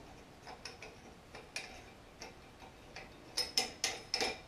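Small clicks and taps of the UV sterilizer's gland nut and metal chamber being handled: scattered light ticks, then a quick run of about five sharper clicks near the end.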